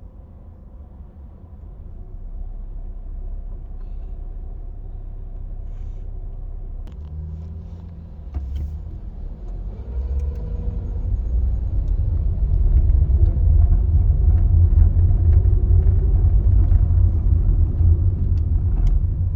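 Cabin sound of a 2022 Volkswagen Polo 1.4 with a 7-speed DSG moving off in traffic: a low rumble that builds and grows much louder from about ten seconds in, with engine tones shifting about eight to eleven seconds in.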